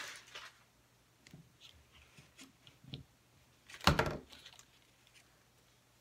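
Faint small clicks and rustles of handling, with one short dull thump about four seconds in.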